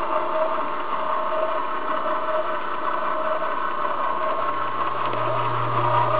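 Hobart 20-quart mixer running steadily, its motor and gear drive turning the meat grinder attachment: an even mechanical whine, with a low hum that comes in about four seconds in.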